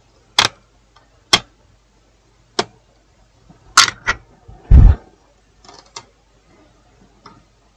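A series of short sharp clicks and taps, about one a second, as tools are handled on an electronics repair bench, with one louder dull thump about five seconds in.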